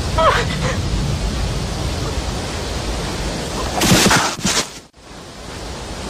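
Steady rushing noise with a few short, high, sliding cries from a brown bear cub in the first second. Near four seconds a loud noisy burst comes in, and the sound cuts off suddenly about a second before the end.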